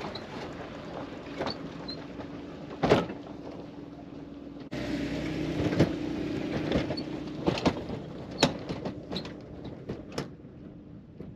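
Jeep Wrangler towing a small trailer over gravel: a steady low engine hum with sharp knocks and clicks of tyres on stones and the trailer rattling. It gets louder about five seconds in, then fades as the Jeep pulls away.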